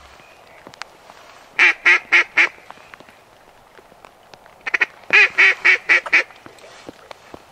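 Mallard hen quacks blown on a duck call, loud and close: a run of four quick quacks, then after a pause a longer run of about seven.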